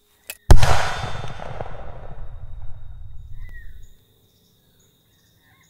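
A single gunshot: a loud, sharp crack about half a second in, then a long rolling echo that dies away over about three seconds. A faint click comes just before it. A steady high insect drone runs underneath.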